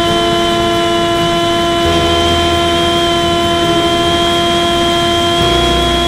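Parrot Disco fixed-wing drone's electric motor and pusher propeller running steadily at cruise power, heard from on board as a steady whine. A low wind rumble comes and goes, stronger about two seconds in and again near the end.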